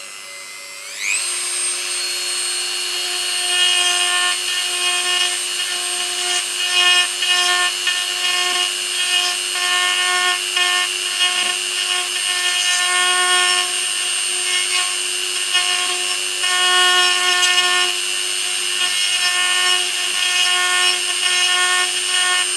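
Handheld high-speed rotary tool (Dremel-style) drilling a burr hole through a 3D-printed plastic skull model: the motor whine rises as it spins up in the first second, then runs steadily at high speed. The grinding swells and eases as the burr bites into the plastic. The hole is not yet through.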